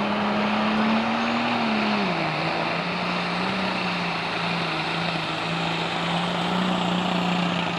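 Turbocharged diesel engine of a Super Stock/Pro Stock pulling tractor running hard, with a dense rush of exhaust and turbo noise over a steady engine note. The note drops in pitch about two seconds in, then holds steady.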